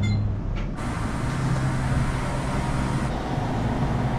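A vehicle's engine running with road noise, heard from inside the cab as a steady low hum.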